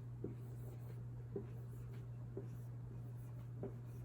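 Writing by hand, with a short soft tap of the pen on the surface about once a second, over a steady low electrical hum.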